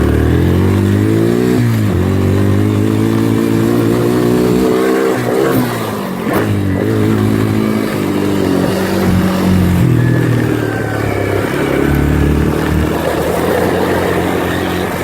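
Small four-wheeler (ATV) engine running while being ridden. Its pitch rises and falls several times as it speeds up and eases off, dropping sharply about two seconds in and again around six seconds.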